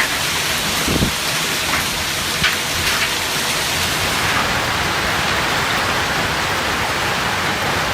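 Hailstorm with heavy rain pelting down: a dense, steady hiss of falling ice and water, with a few sharper hits in the first three seconds.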